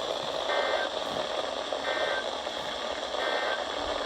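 Three short two-tone digital data bursts of an Emergency Alert System (SAME) signal, each a fraction of a second long and about a second and a half apart, over steady radio hiss. The short length is typical of the end-of-message code that closes an alert.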